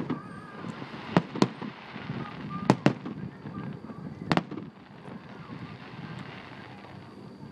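Distant aerial fireworks bursting: about five sharp bangs in the first four and a half seconds, two close pairs then a single one, over a steady low rumble of the show, which grows quieter in the last few seconds.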